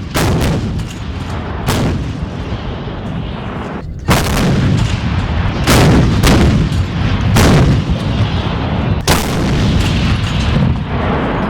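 Artillery guns firing, about half a dozen heavy booms a second or two apart, each followed by a long rolling rumble.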